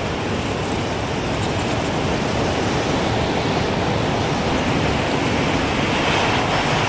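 Gusting wind blowing in a steady rush that swells a little toward the end.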